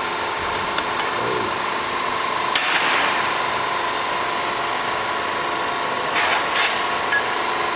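Tube bending machine running with a steady motor hum, with a sharp metallic knock about two and a half seconds in and brief scraping near the end.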